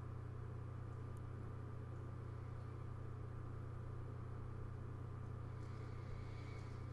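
Steady low hum with a faint thin tone and hiss, unchanging throughout: the background noise of the recording, with no distinct event.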